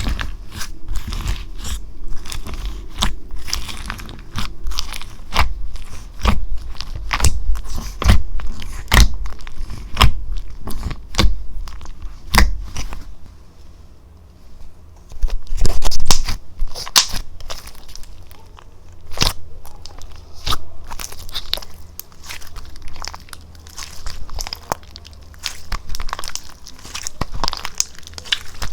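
Slime being pressed and squished by hand, giving off irregular crisp pops and crunches, with a longer, louder stretch of crackling about halfway through.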